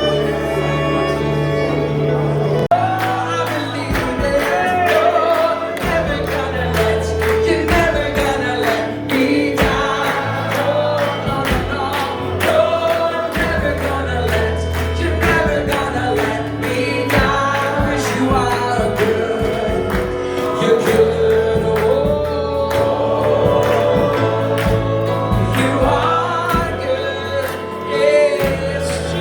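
Live gospel worship music: voices singing a melody over bass and drums with a steady beat.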